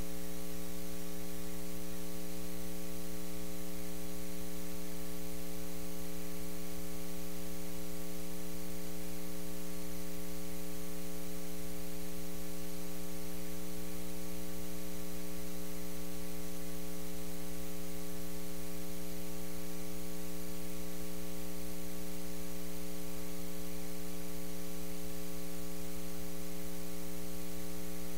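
Steady electrical mains hum: a low, unchanging buzz with a stack of evenly spaced overtones over a faint hiss, and no other sound.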